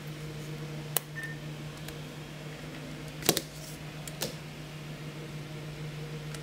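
Plastic clicks and knocks as a Toshiba netbook is closed, turned over and set down on a table: a sharp click about a second in, the loudest knocks a little after three seconds and another just after four. A steady low hum lies underneath.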